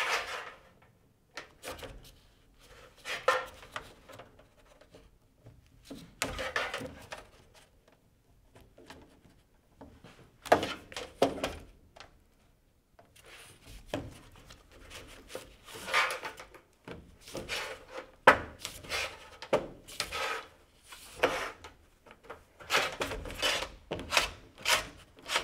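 Hand seamer clamping and bending up the half-inch edge of a sheet-metal end cap, with irregular bursts of metal scraping and rubbing, sheet metal flexing, and a few sharp clanks.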